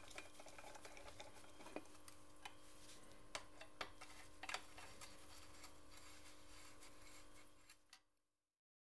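Faint, scattered clicks and ticks of a screwdriver working screws on the aluminium engine cases of a Simson S51 two-stroke engine, over a faint steady hum; it all fades out near the end.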